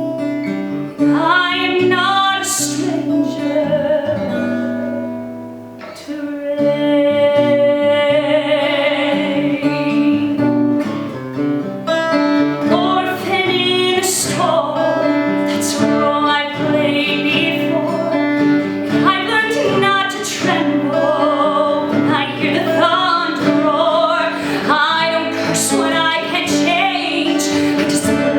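A woman singing a musical-theatre song with vibrato, accompanied by an acoustic guitar.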